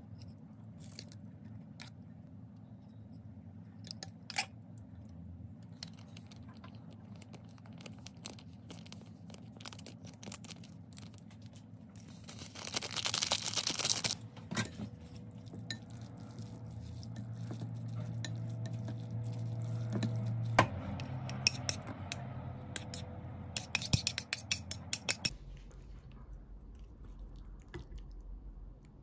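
Kitchen handling sounds as instant noodles are plated and topped in a ceramic bowl: scattered clicks and clinks of utensils against the bowl, and a short dense rustling burst about halfway through. Under it runs a low hum that grows louder and then stops with a click about two-thirds of the way in.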